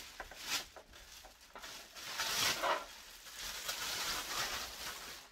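Clear plastic bag crinkling and rustling as an upright vacuum cleaner is pulled out of it, in uneven bouts, loudest about two seconds in.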